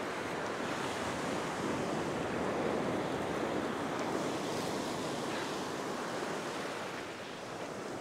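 Ocean surf breaking and washing up a sandy beach: a steady rush of waves that swells a little a few seconds in and eases slightly near the end.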